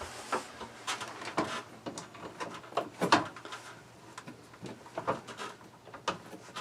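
Irregular clicks, knocks and rubbing as parts of an RV roof vent fan are handled and fitted by hand, with the loudest knock about three seconds in.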